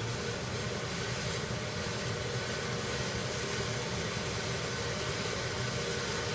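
Steady background noise: an even hiss with a low hum underneath. No distinct handling sounds stand out.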